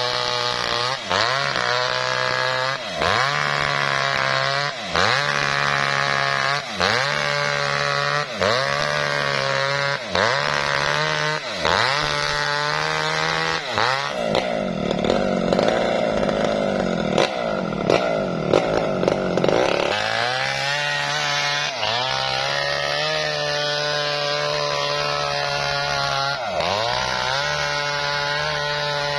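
Maestro mini two-stroke chainsaw ripping a lamtoro (leucaena) log lengthwise. For the first half its engine pitch dips under load and recovers about every two seconds; then comes a stretch of uneven, louder cutting before it runs more steadily.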